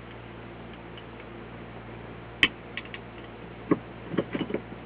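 Small clicks and taps of tools and fittings being handled: one sharp click about halfway, then a few lighter ones and a quick run of taps near the end, over a steady low hum.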